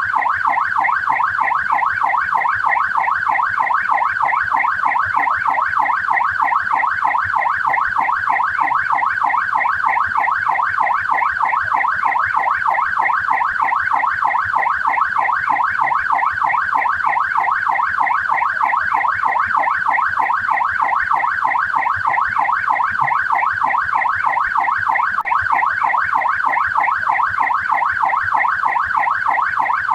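Australian police siren sounding continuously: a fast up-and-down electronic sweep repeating several times a second, steady in level.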